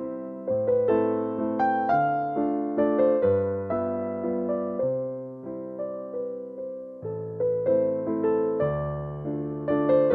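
Background piano music: a slow, gentle melody of single struck notes and chords, each ringing and fading.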